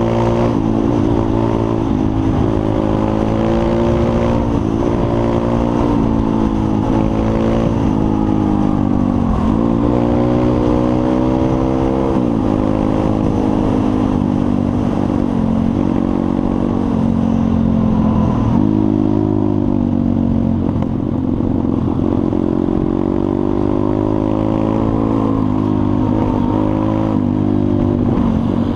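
Pit bike's single-cylinder four-stroke engine running under way as it is ridden. The note climbs steadily and drops sharply several times, about a third and halfway through.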